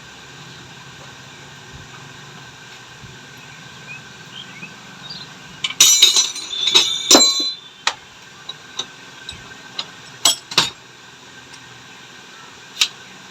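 Metal tools and shock-absorber parts clinking and rattling as they are handled, over a faint steady hum. A loud burst of rattling comes about six seconds in, followed by several single sharp knocks.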